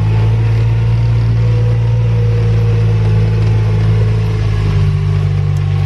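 A steady low engine drone, like a motor vehicle running, with a faint tone that sinks slightly in pitch.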